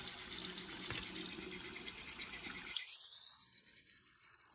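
Tap water running steadily, poured over a phone's glass screen to test its freshly applied oleophobic coating.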